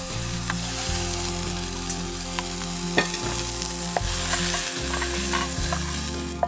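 Sautéed zucchini sizzling in a frying pan as it is stirred with a wooden spatula, with a few sharp clicks of the spatula against the pan. In the second half, the pieces are tipped and scraped out of the pan into a stainless steel bowl.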